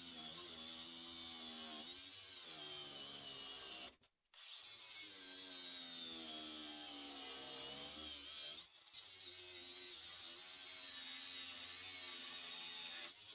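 Ryobi 18V One+ HP brushless angle grinder with a cut-off wheel cutting through a half-inch bolt. The motor's whine dips and recovers in pitch as it loads up in the cut, with a high grinding screech from the wheel. The sound drops out briefly about four seconds in.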